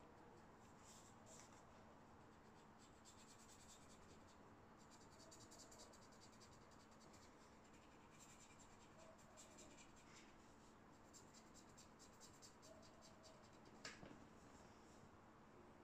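Faint scratchy strokes of a marker colouring on paper, coming in short runs of quick back-and-forth strokes, with a single sharp click about fourteen seconds in.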